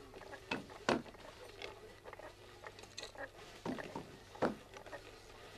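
Light wooden clicks and knocks at irregular intervals, four of them louder than the rest, from a traditional handloom being worked by hand, over a faint steady hum.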